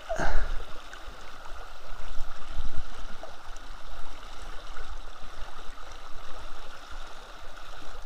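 Creek water running over a shallow rocky riffle: a steady rush.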